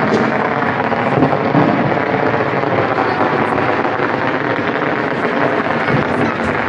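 Dense, continuous rumble and crackle of many firecrackers and fireworks going off across a town, with no single bang standing out.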